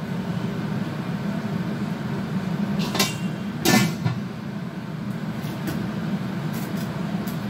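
Kitchen drawers being shut and rummaged through: two sharp knocks about three and four seconds in, then a few lighter clicks, over a steady low hum.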